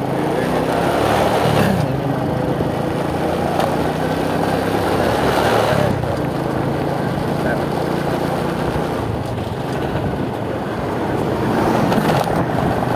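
Motorcycle engine running steadily on the move, with wind and road noise on the rider's microphone; the engine note rises briefly about a second and a half in.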